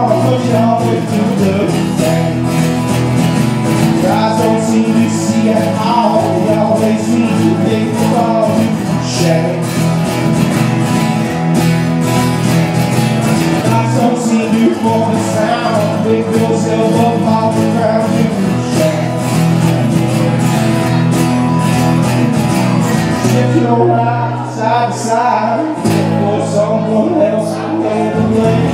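Live acoustic band music: acoustic guitar strumming with bass guitar underneath, and a voice singing. About three-quarters of the way through, the music thins out for a couple of seconds before filling back in.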